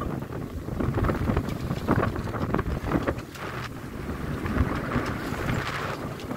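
Strong wind buffeting the microphone over the rushing water along the hull of a small sailing keelboat moving fast through choppy, wind-against-tide sea, with a louder hiss of water about five seconds in.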